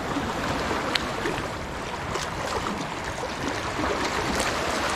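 Seawater washing and splashing around shoreline rocks: a steady rushing noise with a few faint ticks.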